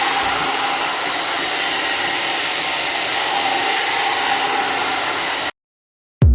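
One-step hot air brush blowing steadily, an even fan rush with a faint steady motor hum, which cuts off abruptly about five and a half seconds in; music starts right at the end.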